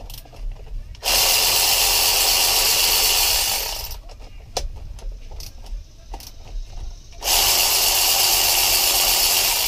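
Cordless electric ratchet running twice, each time for about two and a half seconds, backing out the bolts that hold the supercharger on a Yamaha SVHO engine. Between the two runs there are small clicks of the socket and extension.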